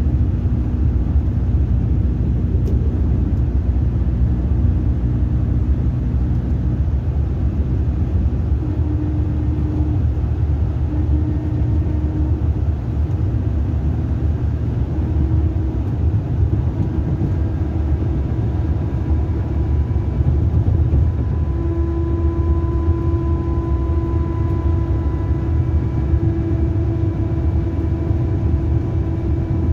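Inside a Mercedes-Benz coach, the engine and running gear give a steady low rumble. Over it a droning tone holds, growing steadier and louder about two-thirds of the way through.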